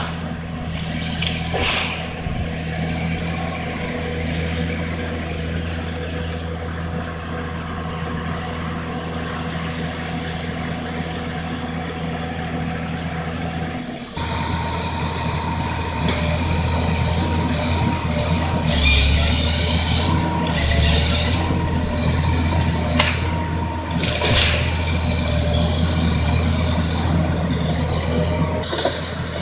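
Timberjack forestry harvester's diesel engine running steadily. About halfway through it gets louder, with a higher steady whine over it and a few knocks.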